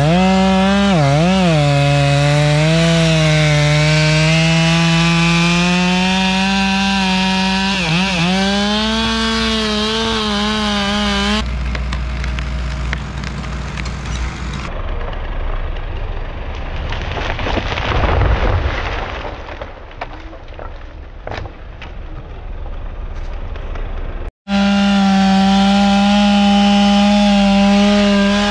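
Stihl MS 461 two-stroke chainsaw running at full throttle, cutting poplar, its pitch dipping briefly twice as the chain bogs under load in the cut. After about eleven seconds the saw's note gives way to a noisy stretch with scattered sharp cracks. Near the end the saw cuts in again, running steady at full throttle.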